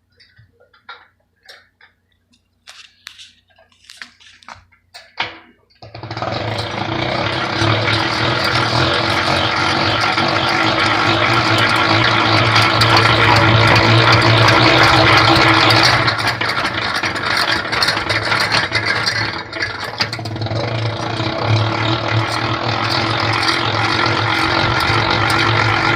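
Honey extractor loaded with frames: a few light knocks and clicks, then about six seconds in its drum starts spinning with a loud, steady mechanical whirr and hum that carries on, dipping slightly at times.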